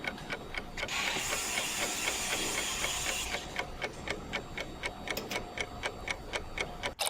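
Rapid, even mechanical ticking, about five ticks a second, with a hiss for about two seconds starting a second in.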